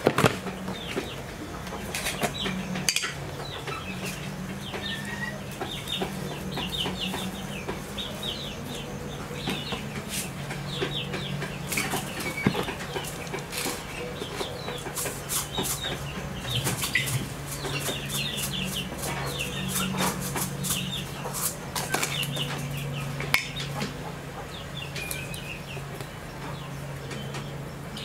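Farm poultry calling, with many short high peeps and clucks and wings flapping, mixed with scattered sharp clicks and clatters. A steady low hum runs underneath.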